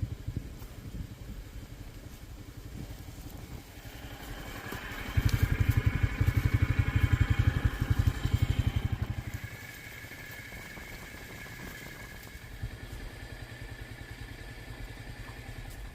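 An engine running with a steady low pulsing. It grows louder for about four seconds starting around five seconds in, then drops back.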